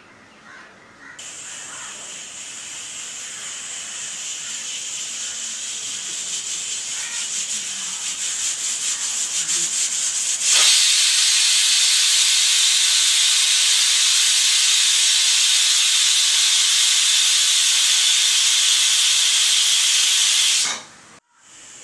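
Aluminium pressure cooker with a weighted whistle building to a whistle: a steam hiss starts about a second in and swells with a fast flutter as the weight lifts, then about halfway through breaks into a loud steady whistle of venting steam that cuts off suddenly near the end. The whistle is the sign that the cooker has reached full pressure, one of the three whistles counted to time the cooking.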